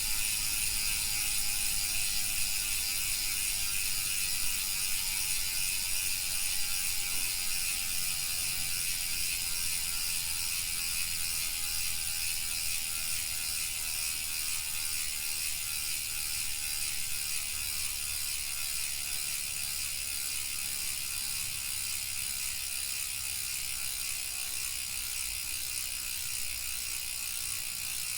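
Shimano FH-MT401 rear freehub ticking fast and evenly as the wheel freewheels, its pawls ratcheting after a year of riding. It slowly grows quieter and lower as the wheel spins down.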